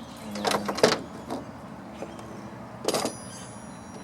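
Fishing tackle being handled while a new knot and lure are tested: a quick cluster of knocks and clinks about half a second in, then a single sharper clink near three seconds that rings briefly.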